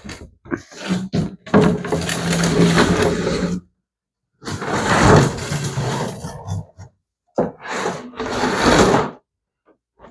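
Plastic parts of an above-ground pool ladder scraping and grinding against each other in three long pushes, with a low groan in the first, as the roll guard is forced along its track; a few short knocks come before them.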